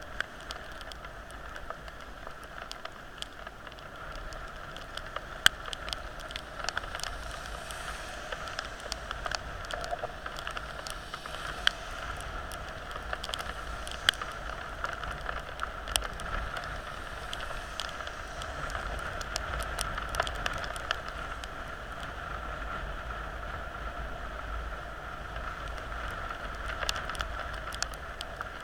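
Heavy rain falling steadily: a constant hiss with many sharp ticks of drops striking close to the microphone.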